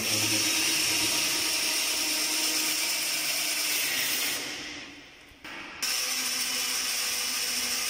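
Cordless power drill running as it drills into the wall. It runs steadily for about four seconds, dies away, and starts again about a second and a half later.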